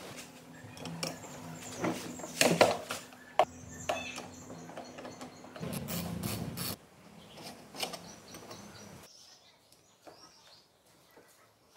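Hand tools working on a bare two-stroke scooter engine: clinks, knocks and scrapes of a wrench on bolts and metal parts, with a faint steady hum that stops about halfway through. Near the end only a few light ticks are left.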